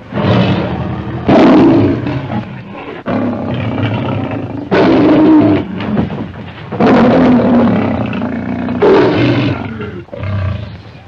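The MGM logo lion roar, the recorded roar of the lion Tanner: a series of about seven loud roars, each starting abruptly and overlapping the one before.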